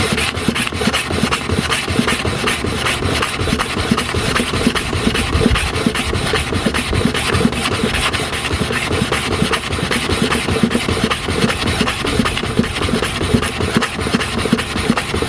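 Hair clipper cutting blade rubbed back and forth on a sharpening stone dressed with powdered sharpening compound and a little oil: a continuous scraping made of rapid, even strokes.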